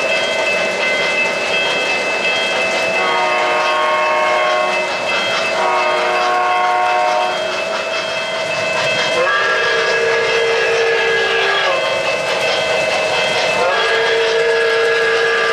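O-gauge three-rail model trains running, with their onboard sound systems sounding four long multi-tone warning blasts over the running noise. The first two blasts are higher-pitched. The last two are lower and swoop up in pitch as they start.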